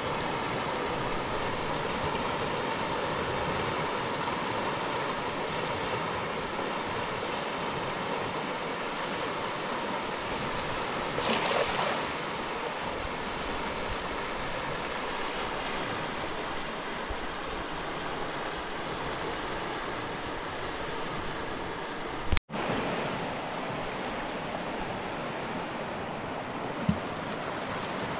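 Fast-flowing river rushing steadily. It briefly gets louder a little over a third of the way in, and there is a sharp click with a split-second dropout about three quarters of the way through.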